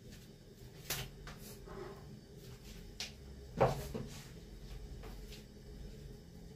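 A few light clicks and one louder knock about three and a half seconds in, over a low steady hum.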